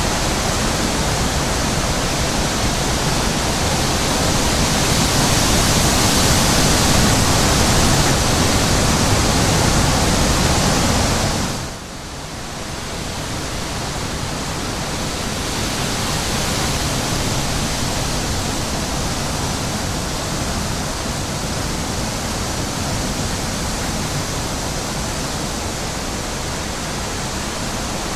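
Wind blowing over the microphone in a sunflower field: a loud, steady rushing noise that drops sharply about twelve seconds in, then slowly builds back.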